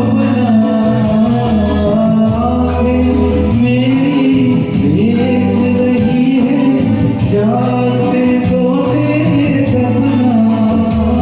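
A singer's voice carrying a Hindi film song melody over a recorded karaoke backing track of bass and chords.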